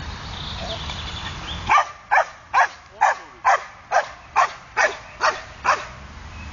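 A podenco dog barking in a steady series of about ten sharp barks, roughly two a second, starting about a second and a half in.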